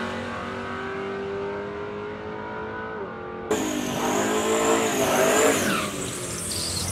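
Car engines revving. One engine note is held steady, then an abrupt change about halfway in brings a louder engine whose pitch climbs and then falls away.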